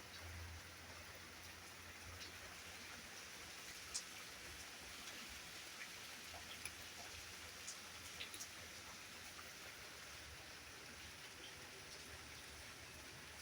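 Steady light rain falling, a soft even hiss with scattered individual drops ticking, one sharper tick about four seconds in.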